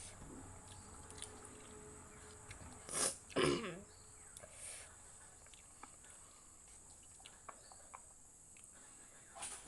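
A person eating ghost-pepper instant noodles: faint scattered small clicks. About three seconds in there is a short loud burst of breath followed by a brief vocal sound that falls in pitch, a reaction to the chilli heat. Another short burst comes near the end.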